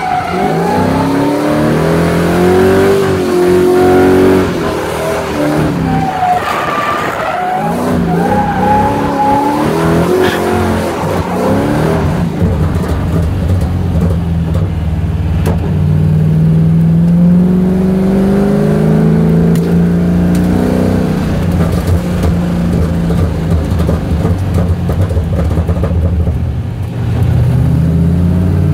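Drift car's engine heard from inside the cabin, revving up and down in quick sweeps for the first half, then pulling in longer rising runs, with tyres skidding.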